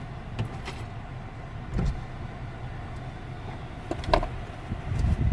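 Car engine idling with a steady low rumble, overlaid by a few sharp clicks and knocks; the loudest click comes about four seconds in.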